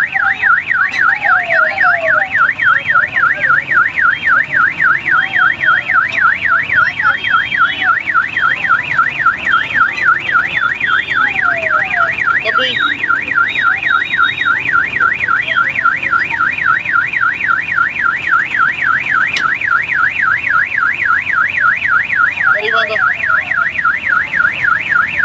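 Electronic warbling siren sounding without a break, a fast up-and-down tone about four cycles a second that starts and stops abruptly.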